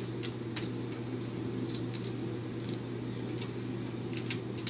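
Scattered small clicks, taps and crackles from handling and picking at a duck egg's shell, over a steady low hum.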